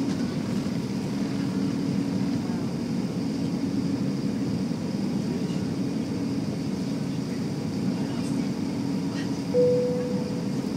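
Steady cabin rumble of an Airbus A380 on its takeoff roll, heard inside the cabin: engine and airflow noise. About nine and a half seconds in, a short single tone sounds, the loudest thing here.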